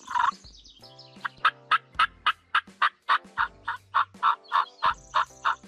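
Turkey calling: one loud call right at the start, then a long, rapid run of short, sharp yelps, about four to five a second, that stops just before the end.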